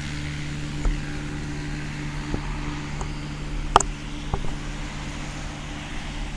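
Microlight aircraft engine and propeller droning steadily, with a few sharp clicks, the loudest about four seconds in.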